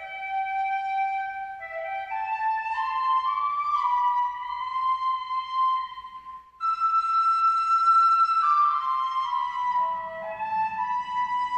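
Instrumental music: a slow melody of held notes climbing in steps. It breaks off briefly about six and a half seconds in, then resumes higher and drifts back down, with a faint low accompaniment coming in near the end.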